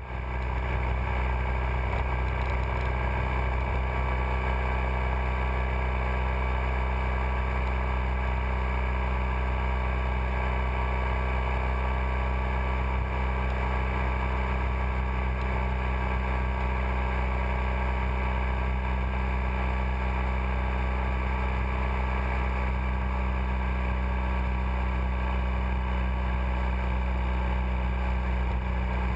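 Motorcycle cruising at a steady speed, heard from a GoPro camera riding on the bike: an even engine drone under a strong, steady low rumble.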